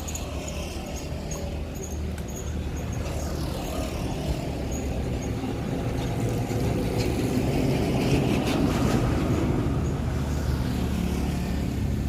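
A motor vehicle's engine running with a steady low rumble, growing louder a little past the middle and easing off near the end.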